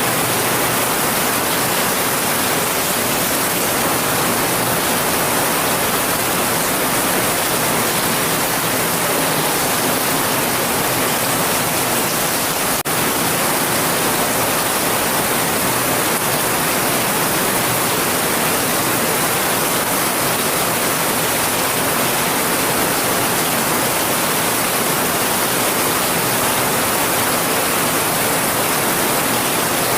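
Steady rainstorm noise, heavy rain as an even hiss, with one very brief dip about thirteen seconds in.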